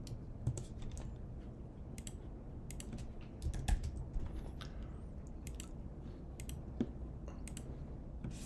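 Computer keyboard typing in short bursts of a few keystrokes, with pauses between, as numbers are entered into spreadsheet cells.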